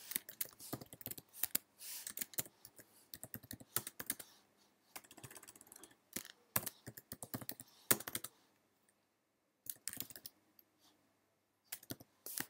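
Typing on a computer keyboard: fast runs of keystrokes for the first eight seconds or so, then short runs broken by pauses.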